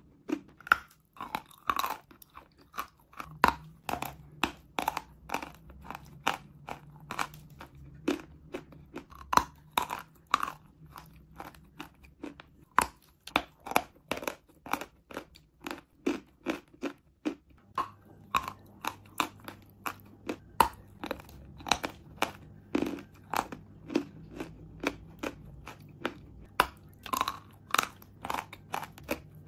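Lump of chalk being bitten and chewed close to the microphone: a quick, irregular run of sharp, dry crunches.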